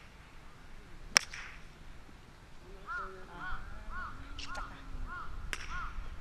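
A park golf club strikes a ball with one sharp crack about a second in, and a second, smaller crack comes near the end. Between them a crow caws six times in an even series, about one call every half second.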